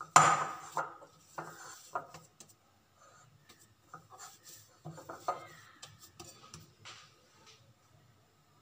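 Hands kneading mashed-potato dough in a glass bowl: irregular squishing and rubbing, with knocks of hands and dough against the glass. The loudest is a sharp knock just after the start, and the sounds thin out toward the end as the dough is formed into a ball.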